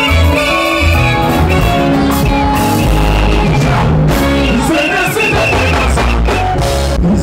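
Loud live music from a festival stage: a heavy pulsing bass beat under a melodic lead line, with a singer's voice coming in about the middle.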